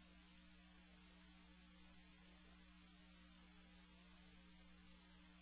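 Near silence: a faint steady electrical hum over a low hiss.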